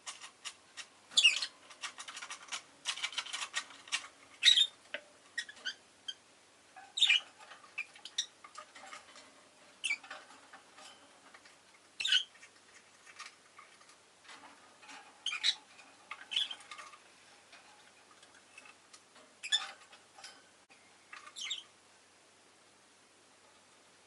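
Rosy-faced lovebird giving short, sharp chirps and squawks every second or two. A quick run of small clicks or taps comes about a second in and lasts a few seconds.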